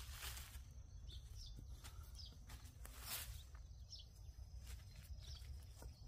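Gloved hands and a small hand hoe scraping and brushing through loose, finely tilled soil while digging sweet potatoes, in short faint scrapes and rustles. Faint high chirps come about once a second.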